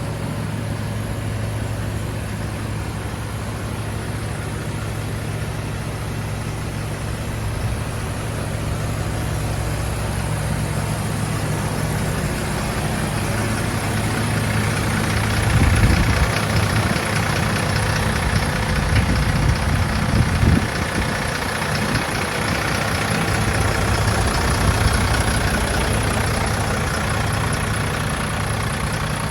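MAN L2000 truck's diesel engine idling steadily. A louder rushing noise builds in the middle, with a couple of low thumps.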